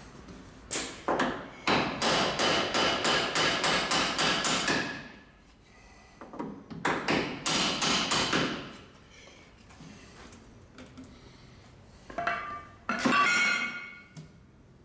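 Quick runs of light metallic taps, about five a second: one long run starting about a second in, a shorter one in the middle, then a brief ringing metallic sound near the end.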